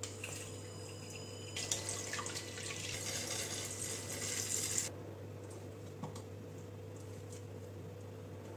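Water running for about three seconds, then stopping abruptly, followed by a single light click.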